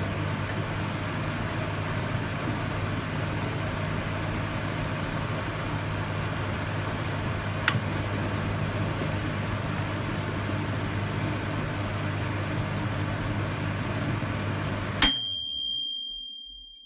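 Microwave oven running with a steady hum, one sharp click about halfway through. Near the end the hum stops suddenly and the microwave's bell dings once and rings out, signalling that the cooking cycle is finished.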